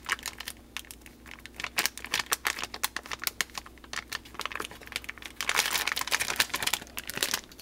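Plastic crinkling and crackling as a resealable zip-top bag holding a packaged ham steak is handled, in irregular bursts of small crackles that grow busier in the last couple of seconds.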